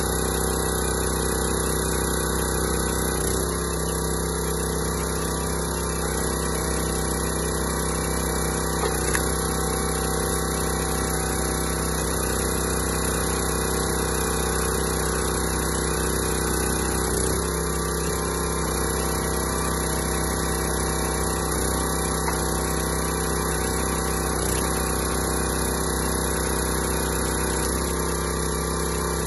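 Small gas engine of a 25-ton hydraulic log splitter running steadily while the ram splits oak rounds. The engine note shifts slightly a few times.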